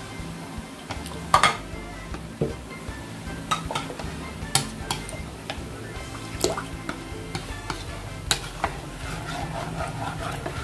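A metal spoon stirring a thin flour-and-cornstarch batter in a bowl, clinking and scraping against the bowl at irregular moments.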